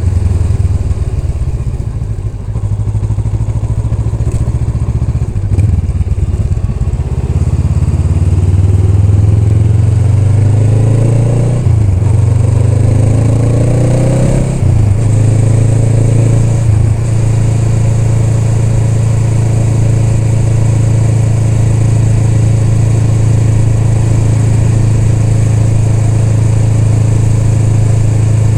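Honda Rebel 500's 471 cc parallel-twin engine running low and even for several seconds, then pulling away: the pitch rises and drops suddenly twice as it shifts up through the gears. After a brief dip it settles into a steady cruising note.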